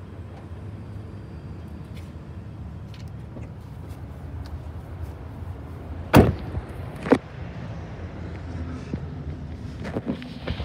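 Car door shut firmly about six seconds in, followed about a second later by a second, lighter knock, over a steady low rumble of nearby traffic; a few light clicks come near the end.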